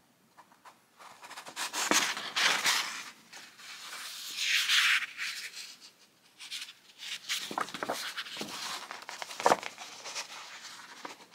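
Paper and thread handling noise from hand-sewing a soft-cover journal's spine with a chain stitch: the paper cover rustles and flexes as the thread is drawn through. There is a longer hiss about four to five seconds in, and scattered light clicks and taps throughout.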